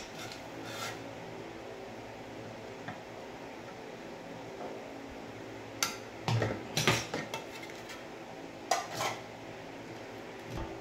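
Metal clinks and clatter from a stand fan being taken apart by hand: the blade is worked off the motor shaft and the wire guard rattles. The sharp knocks come in a few clusters in the second half, over a steady low hum.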